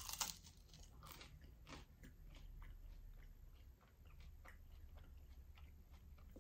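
A crunchy bite into a piece of sourdough toast right at the start, followed by quiet chewing: a run of faint, crisp crunches in the mouth.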